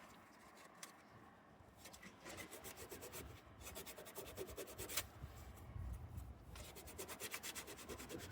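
Hand sanding a rust spot on a car's body panel with 240-grit sandpaper: faint, quick back-and-forth rubbing strokes that begin about two seconds in and pause briefly in the middle.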